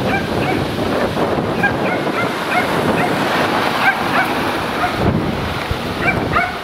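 Wind buffeting the microphone as a steady rough rumble, with short high chirps scattered throughout.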